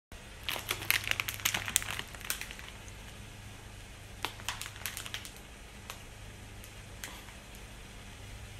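Plastic outer bag of a multipack of 2x Spicy Hot Chicken Flavor Ramen crinkling as it is handled. A burst of crackles comes in the first two and a half seconds, another around four to five seconds in, then a few scattered crackles, over a faint low hum.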